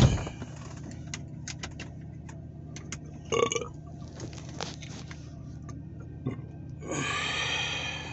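A car door thumps shut at the start, then a low steady hum inside the car with small clicks of the phone being handled. A person makes a brief vocal sound about three seconds in and a longer one near the end.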